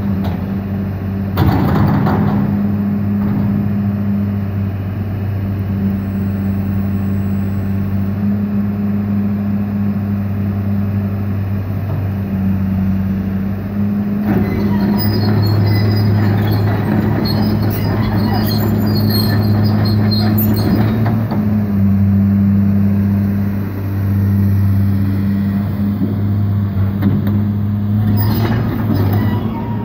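Caterpillar 325LN hydraulic excavator's diesel engine running steadily under load as the boom, bucket and swing are worked. Bursts of hydraulic and metal clatter with faint high squeaks come as the arm moves: briefly about a second in, through the middle, and again near the end.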